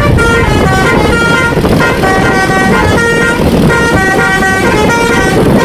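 Telolet horn on an Indonesian coach bus: a multi-tone horn playing a quick tune of short notes that step up and down, loud and without a break, over the rumble of road traffic.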